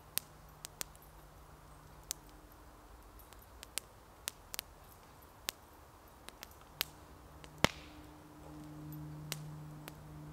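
Scattered sharp pops and crackles from a smouldering campfire, with one much louder crack about three-quarters of the way through. Under them runs the low drone of a distant light propeller aircraft, which swells in the last few seconds.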